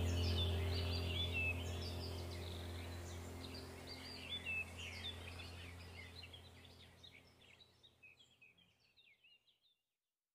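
Birdsong chirping over a low steady drone, an ambient background track fading out to silence about eight to nine seconds in.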